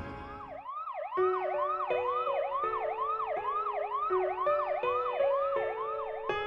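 Ambulance siren in a fast yelp, wailing rapidly up and down about three times a second. It starts about half a second in.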